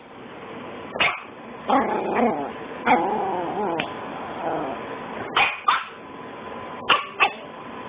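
A dog barking in short, sharp barks about seven times, spaced irregularly. Between the first few barks it makes drawn-out calls that waver in pitch.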